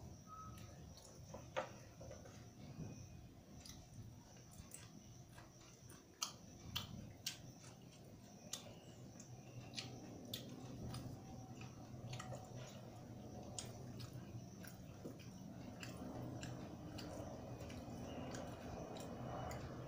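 A person eating rice and dal by hand from a steel plate: chewing with scattered sharp smacks and clicks. A low steady hum grows louder in the second half.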